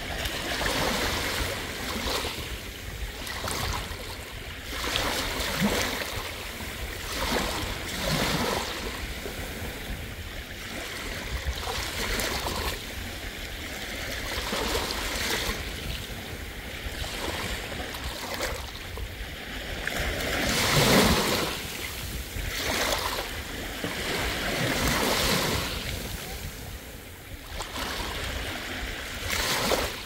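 Small waves washing onto a beach, a surge of surf every second or two, the biggest about two-thirds of the way through.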